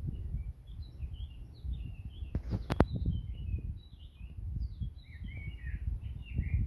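Small birds twittering in short, quick chirps over a low rumble, with a couple of sharp clicks about two and a half seconds in.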